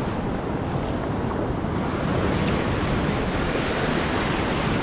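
Ocean surf washing through the shallows, a steady rushing wash with wind buffeting the microphone; the wash grows a little louder about two seconds in.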